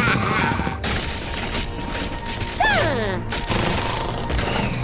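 Background music mixed with a dense run of crashing and gunfire sound effects, with a falling pitched whine about halfway through.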